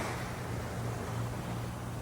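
Steady outdoor wash of surf and wind noise, with a low steady hum underneath.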